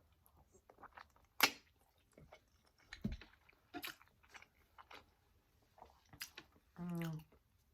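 Close-miked chewing and wet mouth sounds of a person eating shrimp in sauce, with sharp clicks scattered through. Near the end comes a short hummed "mm".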